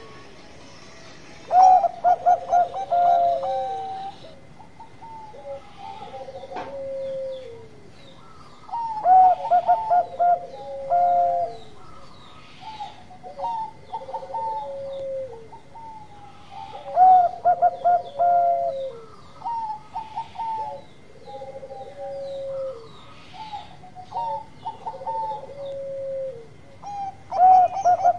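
Zebra dove (perkutut, bangkok contest line) cooing. Four times a loud phrase of rapid, bubbling coos comes, about eight seconds apart, and softer drawn-out coos fall between them.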